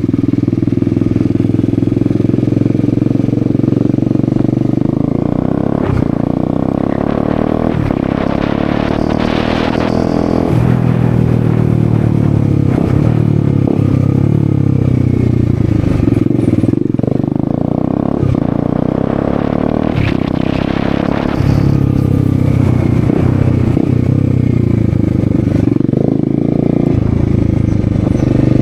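Bajaj Dominar 250's single-cylinder engine running through an open exhaust with the end-can (muffler tip) removed. It is ridden under load, the revs climbing and dropping through gear changes, with a few short sharp pops.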